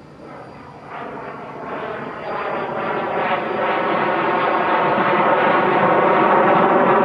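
Aircraft tow tractor moving a Lockheed L-1011 TriStar, with the engine noise of the tug and the airliner's auxiliary power unit growing louder in a few steps as they come closer.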